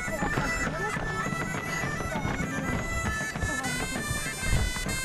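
Wind-instrument music, bagpipe-like: a melody of held notes that step up and down in pitch.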